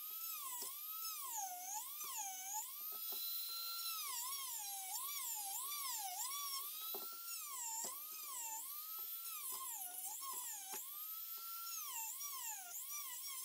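Handheld rotary tool whining at high speed as a small grinding bit cuts into the end of a wooden handle hard enough to make it smoke. The pitch sags over and over as the bit is pressed into the wood and climbs back whenever it runs free, with a few faint knocks.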